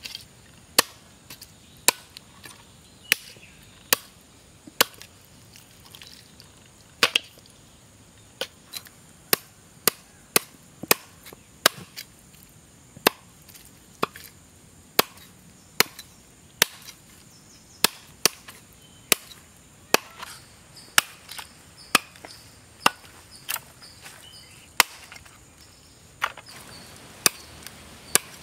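Large knife chopping raw duck meat on a wooden log-stump chopping block: sharp, irregular chops, about one or two a second.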